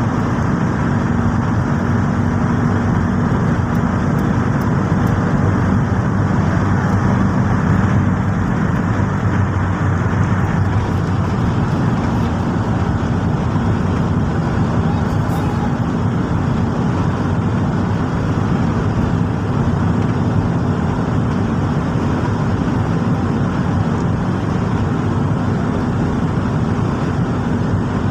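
Steady road noise heard from inside a car cruising on an open highway: a constant low rumble of engine and tyres with a faint steady hum.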